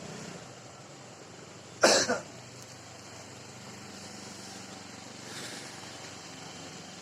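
A person coughing once, a short double burst about two seconds in, over a faint steady low hum.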